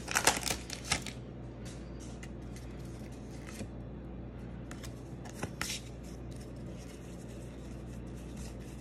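Foil booster-pack wrapper crinkling as it is opened, loudest in the first second, then soft scattered taps and rubs of trading cards being slid out and handled. A steady low hum lies underneath.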